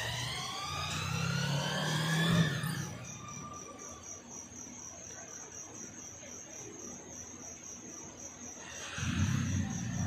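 A vehicle's rising whine, climbing steadily in pitch for about three seconds, then a faint, steady, high pulsing tone. A louder low rumble comes in near the end.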